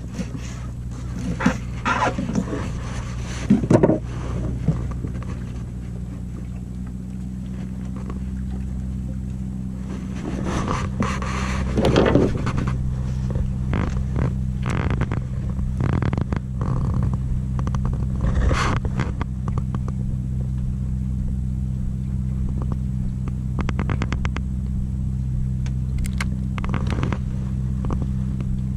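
Boat engine running steadily, a low even hum, with scattered knocks and clatter over it.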